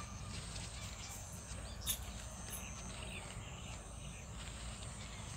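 Faint, steady high-pitched insect trilling, likely crickets, over a low steady rumble, with scattered light rustles and clicks and one sharp click about two seconds in.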